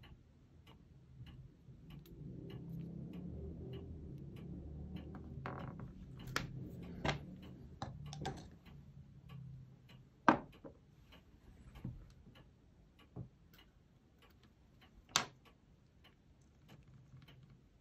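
A steady, faint, evenly spaced ticking runs under small handling noises from work on a plastic model. A low rustling rumble lasts from about two to nine seconds in, with scattered sharp clicks and taps, the loudest about ten and fifteen seconds in.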